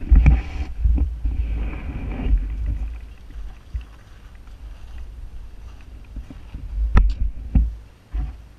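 Gusty wind rumbling on a helmet-mounted camera's microphone, strongest in the first few seconds, with two knocks about seven seconds in.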